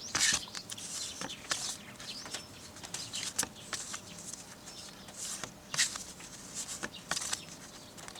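Stiff card lobby cards being handled and flipped through: a series of short, sharp rustles and slides of card against card, coming irregularly every half second or so.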